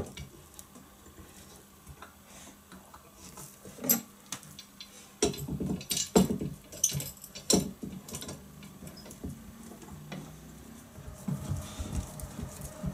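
Metal bar clamps being laid across a glued-up wooden body blank and set in place: scattered clinks and knocks of metal on wood and metal, most of them in a cluster from about five to eight seconds in.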